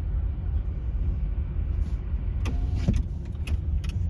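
Steady low rumble of a car's engine and tyres on the road, heard from inside the cabin while driving. About two and a half seconds in there is a short gliding pitched sound, and a few faint clicks.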